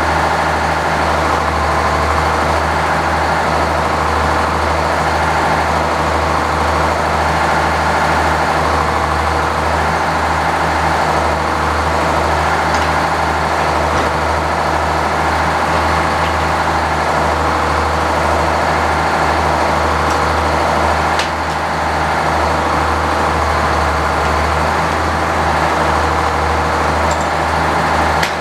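Engine running steadily at a constant speed, presumably powering the sawmill.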